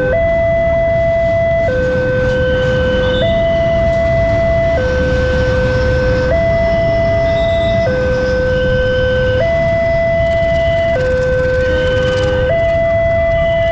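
Railway level-crossing warning siren sounding a slow two-tone alternation, a higher and a lower tone each held about a second and a half, at a steady level over a low rumble.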